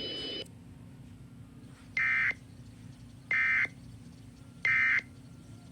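Emergency Alert System end-of-message data bursts: three identical short, buzzy electronic bursts about 1.3 seconds apart, signalling that the alert is over. A steady tone cuts off about half a second before them.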